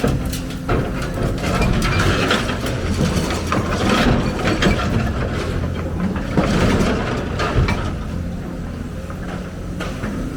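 Heavy construction machine's diesel engine running steadily under load, with repeated metallic clanks and rattles, loudest in the middle.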